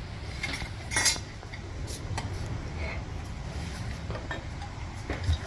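Light clicks and clinks from handling new brake pads and their box, with a sharper knock about a second in and a few more spread through, over a steady low hum.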